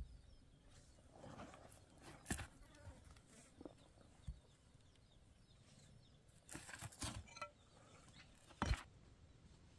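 Sun-dried mud bricks knocking and scraping against each other as they are set by hand into a low wall: a few scattered sharp knocks, with a short cluster past the middle and the loudest knock near the end.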